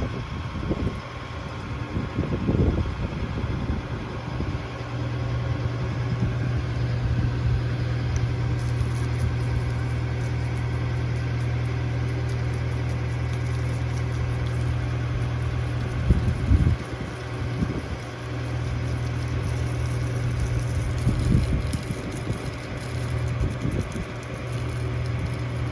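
An engine running steadily at a constant speed, a low even hum with a steady hiss over it and a few brief bumps.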